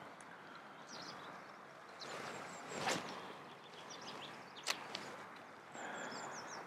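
An ultralight spinning rod swishes through a cast about three seconds in, followed by a single sharp click near five seconds. Birds chirp faintly throughout.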